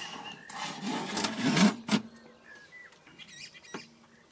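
Metal pellet burner tray of an Ooni Fyra 12 pizza oven scraping as it is pushed into the back of the oven, ending in a sharp clunk as it seats about two seconds in. A bird chirps faintly near the end.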